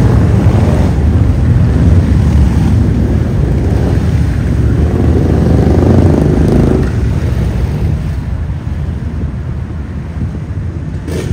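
A group of cruiser motorcycles riding past in city traffic, their engines giving a deep, steady rumble. One engine note rises about five seconds in, then the sound fades away after about seven seconds.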